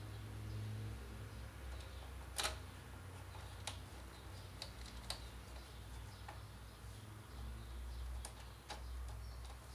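Small scattered clicks and ticks of a hand screwdriver and screws being worked into the plastic-and-metal chassis of a Panasonic PT-AE700E projector, with a low steady hum underneath. The sharpest click comes about two and a half seconds in.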